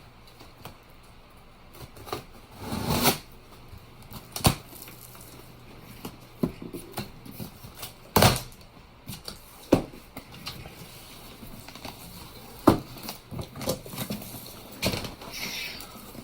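A tool set's box and packaging being opened and handled: scattered sharp knocks and clicks, about seven over the stretch, with quieter rustling and shuffling between them.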